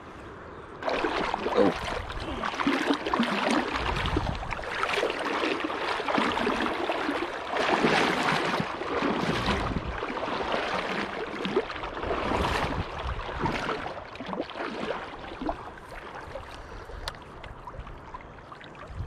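River water splashing and sloshing around an angler's legs as he wades through a shallow river, starting about a second in and coming in uneven surges.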